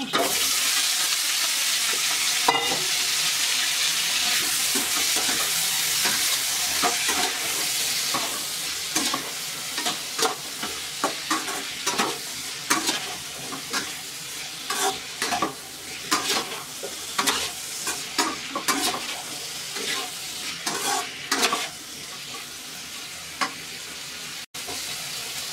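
Pieces of boiled pork intestine hitting hot oil in a pan and sizzling, the hiss loudest at first and easing as they fry. A slotted metal spatula stirs and turns them, scraping and clicking against the pan more and more often.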